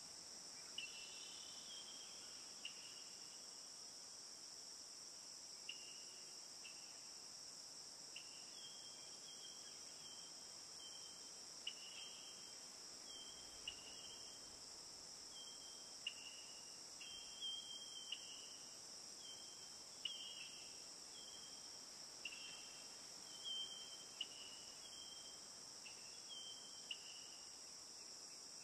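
Faint insect chorus: a steady high-pitched trill, with short high chirps repeating every second or two.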